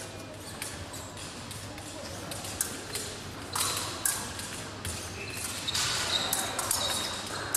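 Épée fencing in a large hall: fencers' feet thumping on the piste, and blades clicking and scraping against each other, with a few short high-pitched rings about halfway through and near the end.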